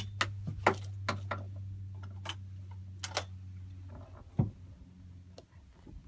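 Irregular sharp clicks and knocks, the loudest at the very start, over a low steady hum that fades about four seconds in.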